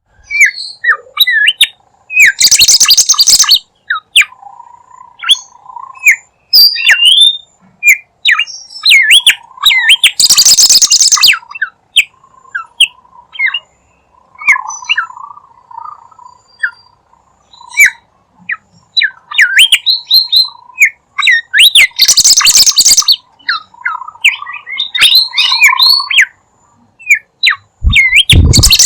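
Bimoli bird singing vigorously in a lure-call recording: rapid short chirps and whistled notes, broken four times by a loud, harsh, buzzy burst about a second long.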